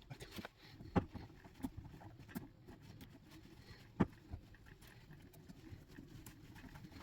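Small clicks and knocks of hand work fitting piston rings onto a diesel engine's pistons, with two sharper knocks about three seconds apart and lighter ticks between them.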